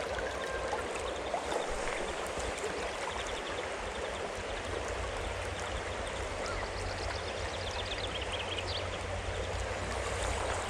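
Small stream running over stones: a steady rush of water.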